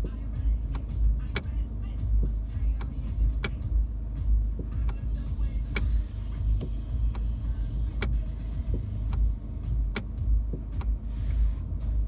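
A car's gear selector clicking, sharp single clicks about once a second at slightly uneven spacing, over the steady low rumble of the running car.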